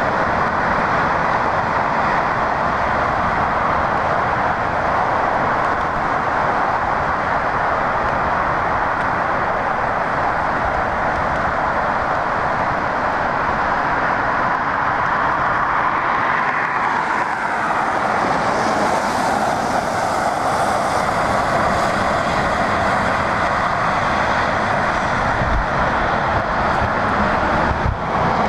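Steady noise of traffic on a snow-covered interstate. About halfway through, a passing vehicle's pitch drops and a higher hiss joins in.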